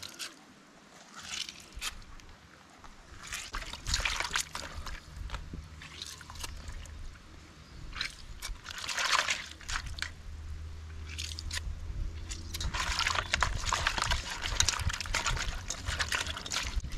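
Hands squeezing a lime and rubbing chunks of raw meat in lime juice and water in a metal bowl: irregular wet sloshing and squelching, busier in the second half.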